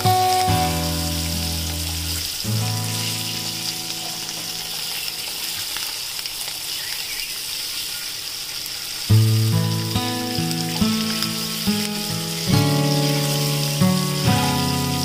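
Hot oil sizzling steadily as spice-coated boiled eggs fry in a pan, over background music with held low notes. The music fades out for several seconds in the middle and comes back about nine seconds in.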